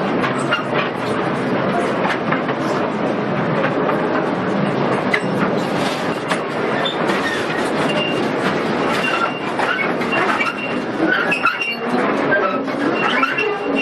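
Rail carriage of an underground mine tour rattling and clattering steadily along its track, with short thin wheel squeals in the second half.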